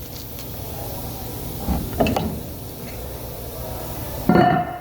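Handling noises over a steady low hum: a couple of knocks about two seconds in, then a louder clatter with a brief metallic ring near the end, as the camera and gear are set in place.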